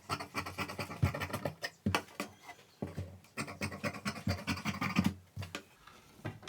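Marking tool drawn back and forth across fabric on a table, a quick scratching in several runs of strokes as the armhole curve is marked out.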